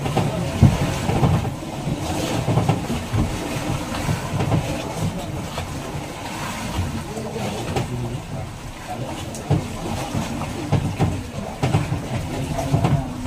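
Fishing boat's engine running, a continuous low rumble with irregular knocks and clatter throughout.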